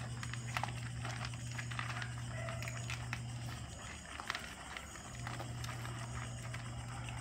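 Puppies eating dry kibble from a tray: irregular crunching and clicking of kibble and teeth against the tray, over a steady low hum that stops for about a second midway.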